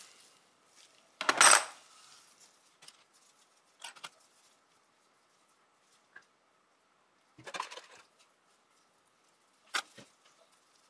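Stgw. 57 trigger-group parts clinking and being set down in a plastic parts tub, metal knocking on plastic and metal. A louder clatter comes about a second in, followed by a few lighter knocks and clinks.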